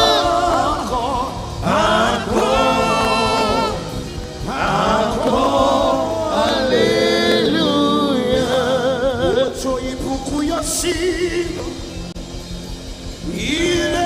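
Gospel worship singing with music: voices hold long, wavering notes in phrases a second or two long, with short breaks between them.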